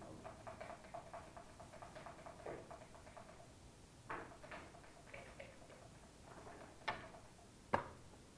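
Light clicks and clacks of backgammon play, with checkers and dice on the board. A quick run of ticks comes first, then two sharper clacks near the end.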